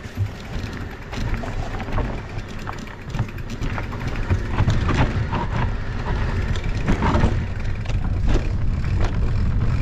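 Mountain bike riding over rough ground: wind buffeting the microphone, tyre noise and scattered rattles and knocks from the bike, getting louder about halfway through.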